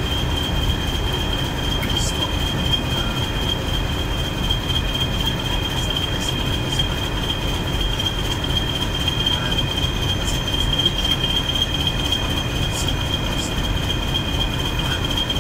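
Diesel train running steadily: a continuous low engine rumble with a steady high-pitched whine over it and a few faint clicks.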